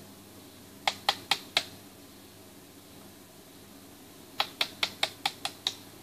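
Small brass hammer (mekugi-nuki) tapping on a katana's handle to drive out the retaining peg: four sharp taps about a second in, then seven more in a quick run near the end.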